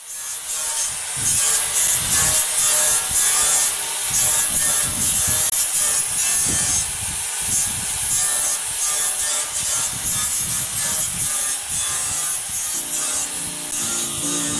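Angle grinder with a blue abrasive disc grinding and sanding a metal surface: a steady high-pitched whine mixed with rough scraping, its loudness wavering as the disc is pressed and moved over the metal.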